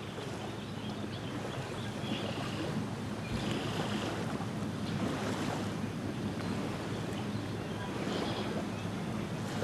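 Small lake waves lapping on a sandy shore, a steady wash that swells and eases gently, with wind on the microphone. A few brief fainter higher sounds come and go over it.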